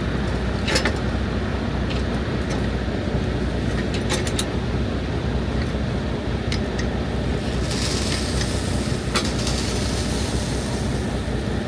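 Vehicle engine running steadily with a low rumble, with a few short sharp clicks or rattles along the way.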